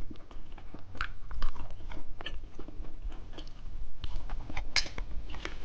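Close-miked biting and chewing of a hamburger-shaped candy: a run of crisp, irregular crunching clicks.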